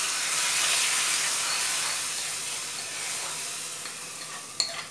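Dal sizzling and hissing in a small hot tadka pan of ghee, the hiss slowly dying away. One sharp knock near the end.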